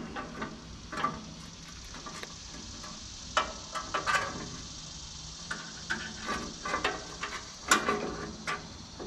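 Irregular short scrapes, clicks and knocks of hand work on the sawmill's steel frame and fittings, coming in uneven clusters, with the sharpest knock near the end.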